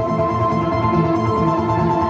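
Live experimental drone music from guitar and electronics: several sustained tones held steady over a low pulse repeating about three times a second.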